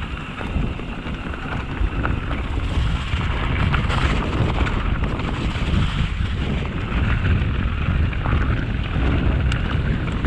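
Wind buffeting the microphone over the tyres of a mountain bike rolling down a dirt-and-grass forest track, with a steady low rumble and small scattered knocks from the bike over the rough ground.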